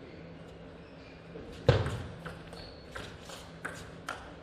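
A table tennis rally in a large hall: the celluloid ball clicks sharply off the rackets and table about twice a second. The rally is opened by one loud thud, the loudest sound, about a second and a half in.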